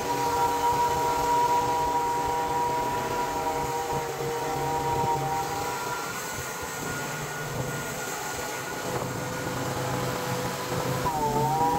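Portable bandsaw sawmill's engine running steadily. A little before the end its pitch dips briefly and recovers, as the blade takes up the load of a cut through the white oak.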